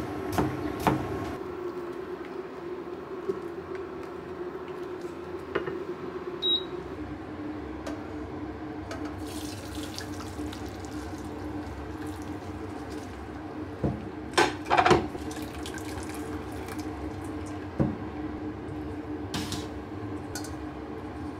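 A knife chops bacon on a plastic cutting board a couple of times at the start. Pasta water then pours from a saucepan through a stainless steel mesh colander into a steel sink, with a few loud metal knocks about two-thirds of the way through.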